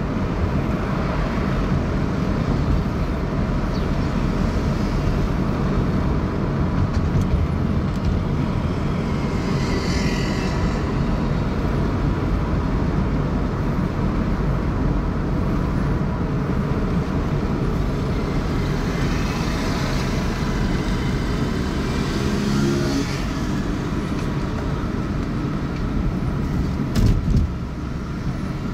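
Steady road and traffic noise from a car driving through city streets. Other vehicles swell past about ten seconds in and again around twenty seconds in, and a couple of sharp knocks come near the end.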